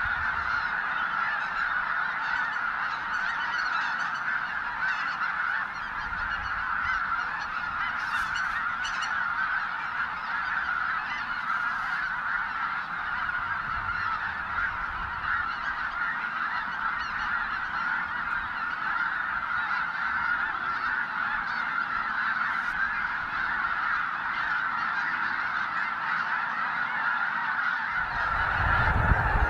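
A large flock of snow geese calling: a dense, continuous clamour of many overlapping honks.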